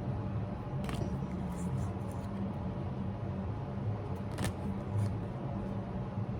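Pokémon trading cards being handled, giving a couple of faint short clicks about a second in and again past the four-second mark, over a steady low background hum.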